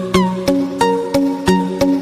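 Background music: a melody of evenly spaced plucked notes, about three a second, some of them sliding down in pitch.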